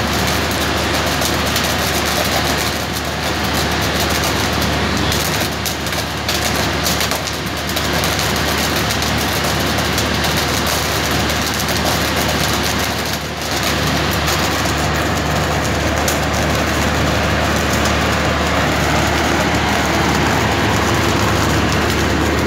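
Mobile flash butt rail welding machine in the flashing stage, the clamped rail ends arcing and spraying sparks: a loud, steady noise over a constant low hum, dipping briefly a few times.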